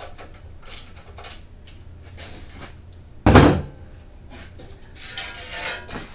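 Hands and tools handling generator parts: scattered light clicks and rustles, one loud knock about three seconds in, and a short clattering scrape near the end.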